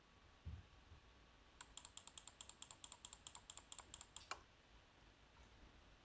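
Faint, steady hiss of a Lenovo IdeaPad S145-15API laptop's cooling fan under a Cinebench R20 rendering load. A soft thump comes about half a second in, and a quick run of about two dozen light clicks starts about a second and a half in and stops after about three seconds.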